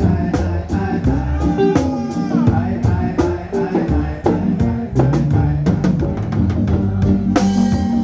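Live reggae band playing: a drum kit keeps a steady beat over a bass line and other instruments.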